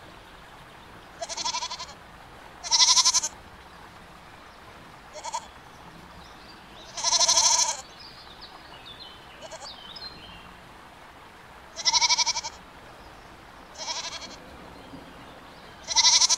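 Goats bleating, about eight separate calls at irregular intervals; most last around half a second and a few are short.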